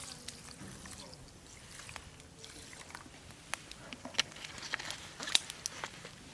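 Wood campfire crackling, with irregular sharp pops and snaps that come thicker in the second half.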